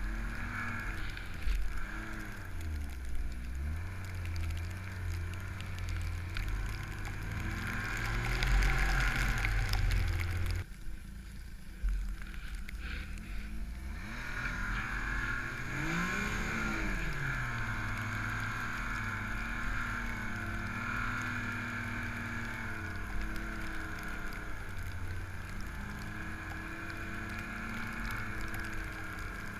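Ski-Doo 1200 4-TEC four-stroke snowmobile engine running under throttle in deep powder, its pitch rising and falling. About a third of the way in the throttle comes off sharply for a few seconds, then the engine revs back up in a quick rising-and-falling swoop and settles into a steady pull.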